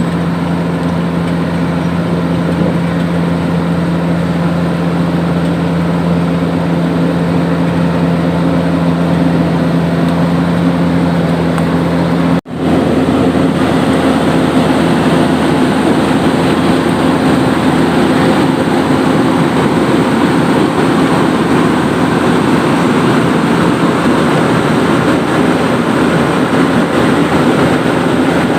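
Heavy diesel road-paving machinery running steadily, a continuous engine hum. It cuts out abruptly for a moment about twelve seconds in, then resumes with a slightly different hum.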